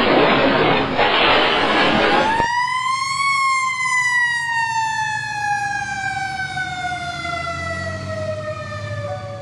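Motorbike crash sound effect: a harsh rush of noise for about two seconds, cut off abruptly. Then a single siren wail rises briefly and slides slowly down in pitch.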